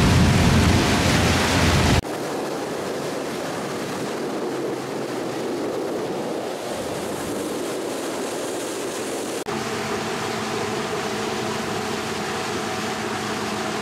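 Boat moving along a river: a steady rush of wind and water. About two seconds in it changes abruptly from a heavy low rumble to a lighter hiss, and near ten seconds a low steady hum joins it.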